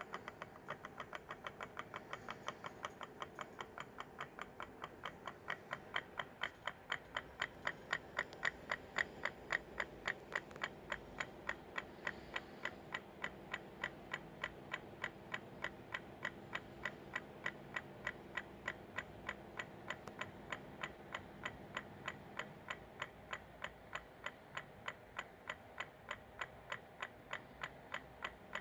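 Pulse motor running, with the ferrite rod in its LED coil knocking in time with each coil pulse. It makes a steady train of sharp ticks, a few a second, slightly quicker at first.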